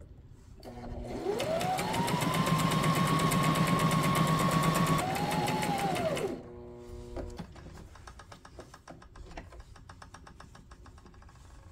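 Brother SM2700 electric sewing machine sewing a decorative embroidery stitch: the motor whine rises as it speeds up, runs fast with rapid needle clatter, eases off and picks up again briefly, then winds down and stops about six seconds in.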